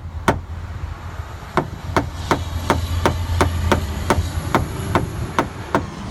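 Paintless dent repair tap-down on a Ford F-150's sheet-metal body panel: a tool tapping down a high wave left after pushing out the dent, in quick, even light taps about three a second, with a pause of about a second near the start. A steady low hum runs underneath.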